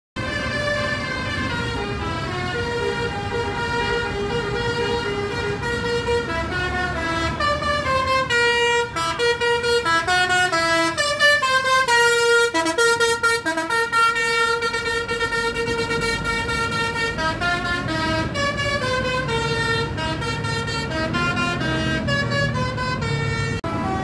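A bus's basuri (telolet) musical horn playing a tune, with several horn tones stepping from pitch to pitch and held notes throughout, over a low engine rumble.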